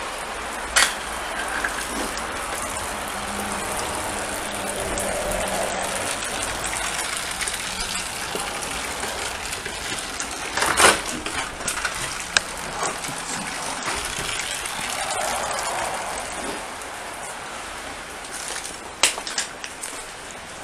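Steady hiss of rain, with a few sharp knocks and cracks scattered through it, the loudest about eleven seconds in, like debris knocked or stepped on.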